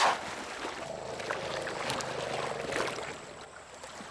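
Desert elephants wading through a shallow stream, their feet splashing and sloshing through the water, with a loud splash right at the start.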